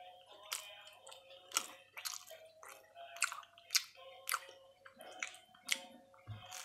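Close-up chewing of a toasted cheese-and-butter sandwich: crisp, moist chewing strokes at an uneven pace of about two a second. There is a low thump near the end.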